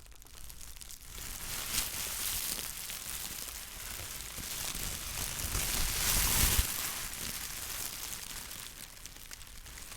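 Plastic bag being crumpled and crinkled in the hands: a continuous crackling rustle that swells louder about two seconds in and again around six seconds in.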